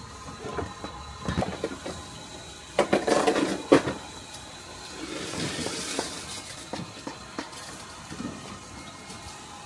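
Water splashing and running, with scattered knocks and clatter like pots or utensils being handled. A louder run of clattering knocks comes about three seconds in, and a hissing swell of water a couple of seconds later.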